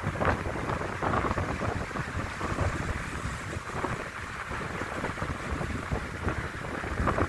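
Wind buffeting a phone's microphone in uneven gusts, over a steady low rumble of road traffic on a bridge.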